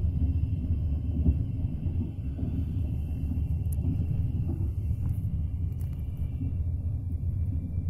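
Train carriage interior: the wheels running on the rails give a steady low rumble, not loud, with a faint high whine above it.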